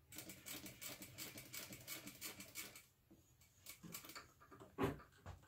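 Sewing machine stitching a basting seam, a quick run of clicks for about three seconds. Near the end, a few scattered clicks and one sharp knock as the work is lifted out from under the presser foot.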